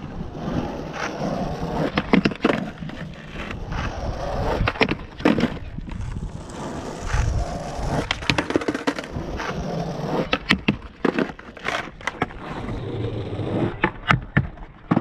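Skateboard wheels rolling over asphalt as the rider pushes along, with repeated sharp clacks of the board. Near the end the tail snaps down as he pops up onto a box for a backside noseslide.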